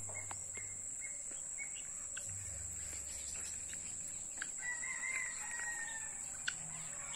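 Fowl calling: several short calls and one longer, wavering call about halfway through, over a steady high-pitched insect drone.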